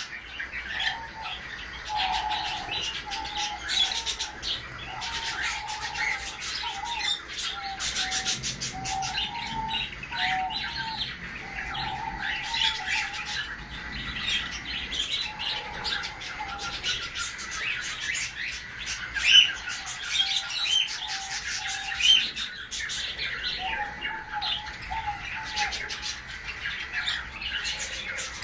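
Sun conure pair chirping and chattering nonstop during mating, with a steady run of short repeated notes beneath rapid high chirps. Two louder calls stand out about two-thirds of the way through.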